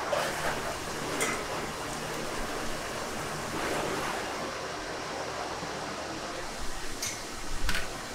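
Steady rushing noise of a commercial kitchen, with a few short clinks.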